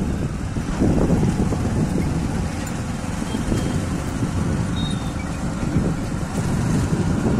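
Motorcycle running at low speed, with wind rumbling on the microphone.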